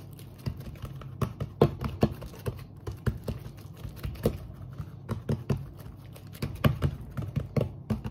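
Fingertips and palms patting and pressing oiled msemen dough flat on a wooden worktop: irregular light taps and slaps, several a second.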